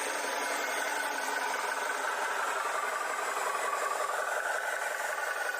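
Steady, engine-like running noise with a faint, even high hum and no breaks or changes.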